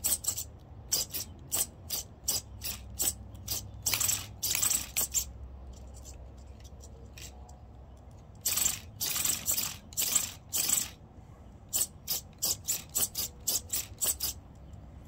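Brushless Perfect Pass Monster steering servo on an RC rock crawler snapping the front wheels from lock to lock over and over: a burst of servo buzz with each sweep, some quick and clipped, a few longer. This is a servo speed test.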